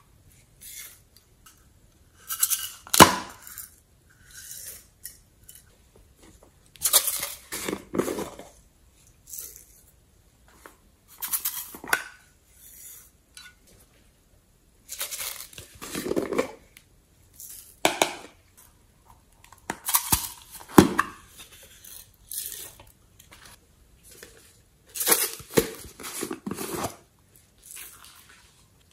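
Sequins and glitter shaken out of small plastic containers onto slime: irregular bursts of rattling and pattering with sharp plastic clicks and taps, separated by short pauses.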